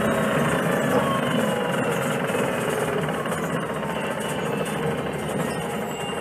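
Transit bus with a Cummins C Gas Plus natural-gas straight-six engine and a Voith automatic transmission, running with a steady rattly drone and a faint gliding whine. It eases off a little toward the end.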